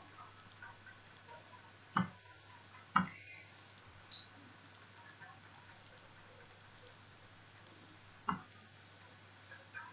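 Computer mouse clicking: three sharp clicks, two about a second apart and a third some five seconds later, with a few fainter ticks, over a faint steady low hum.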